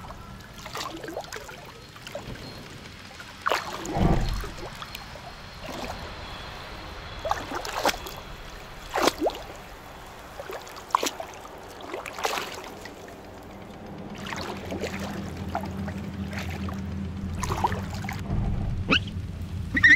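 Water trickling and pouring as a soapy die-cast toy Mini Cooper S is rinsed clean, with scattered small clicks and knocks from handling the toy and a dull thump about four seconds in. A low hum comes in during the second half.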